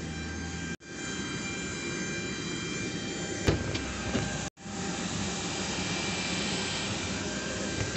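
Jet airliner's turbine noise on the apron: a steady whine with several high tones over a rushing hiss. It drops out twice for a split second, with a sharp knock just before the middle.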